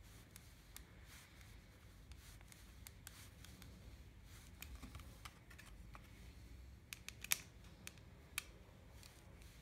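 Small screws being turned with a screwdriver into acrylic, with faint scraping and handling of the acrylic plate and circuit board. A few sharp plastic clicks come about seven seconds in, one much louder than the rest.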